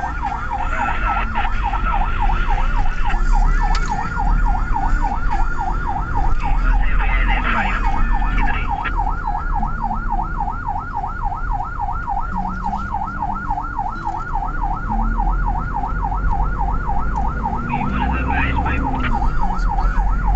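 Ambulance electronic siren on a fast yelp, a quick rising wail repeating about four times a second, heard from aboard the moving ambulance with its engine and road noise underneath.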